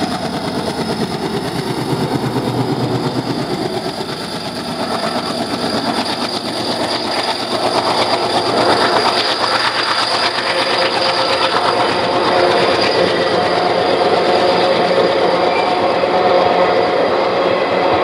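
Alco WDM-3A diesel locomotive passing close by with its engine chugging, then its passenger coaches rolling past with wheels clattering on the rails.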